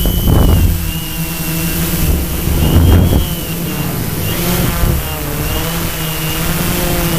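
Multirotor drone's electric motors and propellers running steadily, heard from its onboard camera, their several pitches wavering up and down as the motors change speed while the copter turns. Two loud gusts of wind noise hit the microphone, about half a second and three seconds in.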